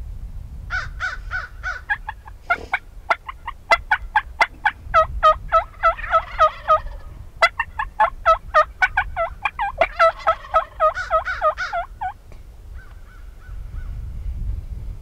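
Several Merriam's wild turkey toms gobbling, their rapid rattling gobbles running together and overlapping from about a second in until about twelve seconds, then stopping.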